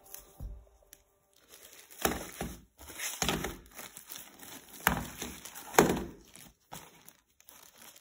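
Thin plastic wrapping crinkling as a gloved hand picks up and handles a wrapped part, in several separate rustling bursts after a quiet first second.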